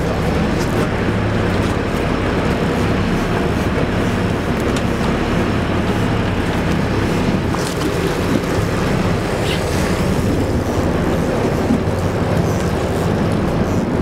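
Fishing boat's engine running steadily with a low hum, under a constant wash of wind and water noise.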